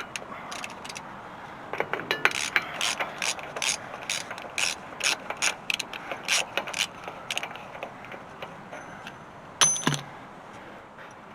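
Hand ratchet clicking in short, uneven runs while a wheel spindle nut is backed off, then a single louder metallic clank with a brief ring near the end.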